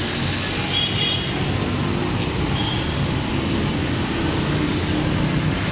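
Steady rumble of road traffic and engine noise, with faint brief high tones now and then.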